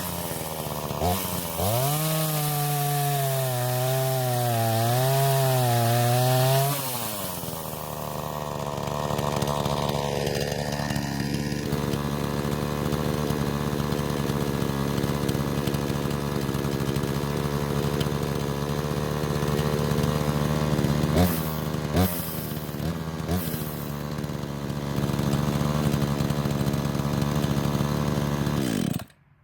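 Craftsman two-stroke chainsaw running at high speed while cutting a downed limb. Its pitch wavers up and down under load for the first several seconds, then holds steadier, with a few sharp cracks about two-thirds of the way through. It cuts off abruptly just before the end. The saw is running and cutting well after its repair.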